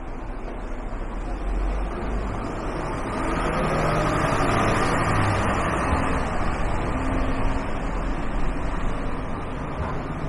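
Road vehicle passing: a steady rush of engine and tyre noise that swells over the first few seconds, peaks about halfway through and slowly fades, with a faint high whine.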